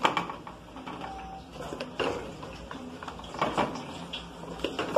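A spoon scraping and knocking against an aluminium baking tray while spreading mashed potato, with a few sharper knocks spread through.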